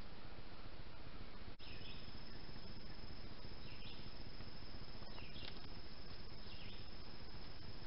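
Steady hiss of a trail camera's microphone, broken by a brief dropout about one and a half seconds in. After it, a short chirping call repeats about every second and a half over a thin, steady high whine.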